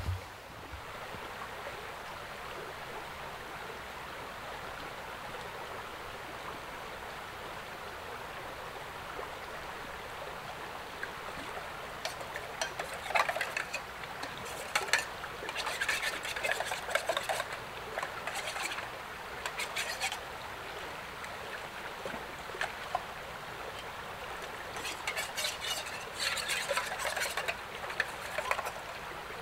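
Creek water running steadily, joined by broken bouts of splashing and trickling at the water's edge from about twelve to twenty seconds in and again near the end, where hands are working in the water.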